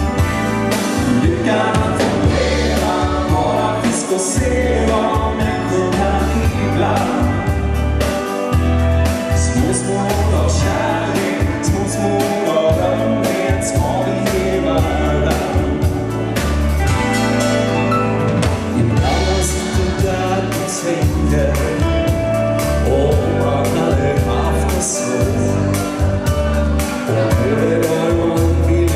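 Live band playing a song with a man singing the lead, over keyboards, electric guitar and a pulsing bass with a steady beat.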